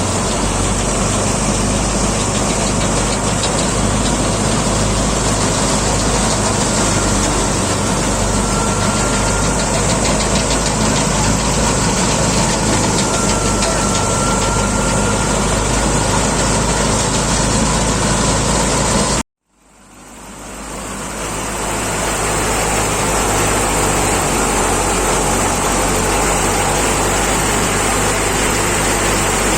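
Tractor engine running steadily under load, driving a wheat thresher, with a dense, even machine noise. The sound cuts out suddenly about two-thirds of the way through, then fades back in over a couple of seconds.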